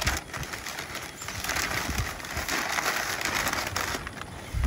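Brown kraft packing paper crinkling and rustling as it is handled and pulled out of a cardboard shipping box.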